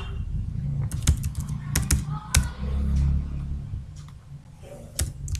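Typing on a computer keyboard: a handful of separate key taps in the first half, then one more click near the end, over a low steady background hum.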